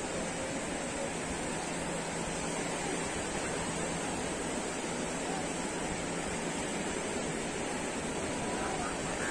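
Sea surf washing onto a sandy beach: a steady, even rush of breaking waves.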